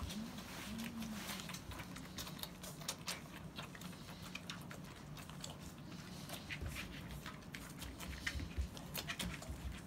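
Akita puppies suckling from their standing mother: rapid, irregular wet smacking and clicking from several mouths at once.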